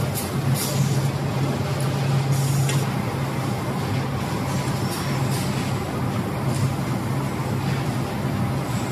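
Carton production line machinery running steadily with a low hum, with short hisses every second or two.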